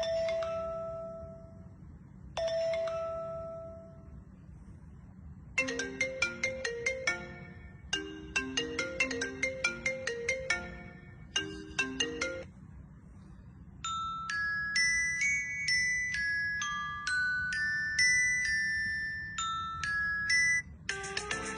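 A string of short mobile-phone ringtone melodies with pauses between them. It opens with two single held chime notes. About five seconds in come several runs of quick, bright mallet-like notes, and about fourteen seconds in a slower electronic melody of held notes that step up and down.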